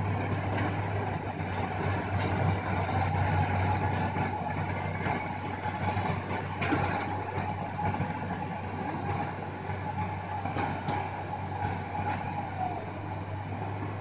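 Crawler-mounted rotary drilling rig boring a pile hole: its diesel engine runs steadily under a hydraulic whine that holds level and then dips near the end, with a few sharp metallic knocks.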